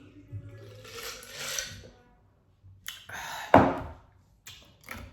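A woman burps once, short and loud, about three and a half seconds in, after eating a burger; before it there is a breathy sound and some faint rustling.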